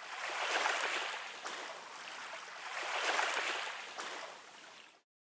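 Water rushing and splashing along the hull of a moving boat. It swells twice, about a second in and again near three seconds, then fades away near the end.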